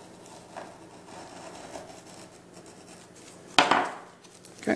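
A paper envelope being slit open with a small blade, a soft scraping along its edge. Near the end comes a louder sudden crackle of paper, then a shorter one, as the envelope is picked up and handled.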